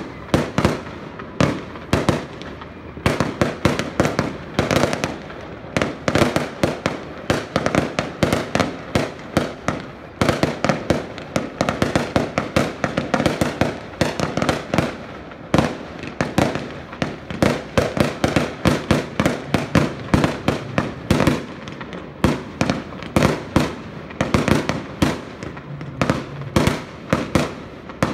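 Fireworks display: an unbroken barrage of firework bangs, several a second.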